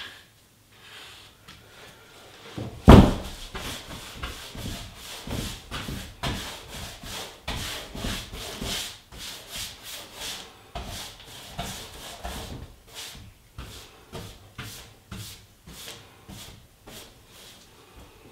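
A small foam paint roller is worked back and forth over the door's surface, making a quick run of rubbing strokes, about two a second, as matched paint goes over a filled patch on a masonite door. A single sharp knock comes about three seconds in, before the strokes begin.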